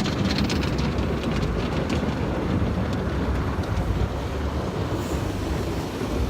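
Tunnel car wash side brushes spinning and scrubbing against the car, with water spraying, heard from inside the car: a steady rushing wash over a low rumble.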